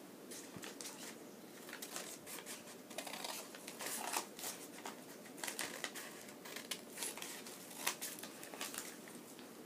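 Scissors snipping into folded paper, with the paper rustling as it is handled: a run of short snips and crinkles.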